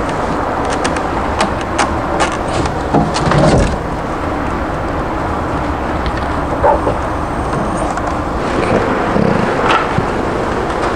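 A steady, loud rushing noise with scattered light clicks and a few short knocks.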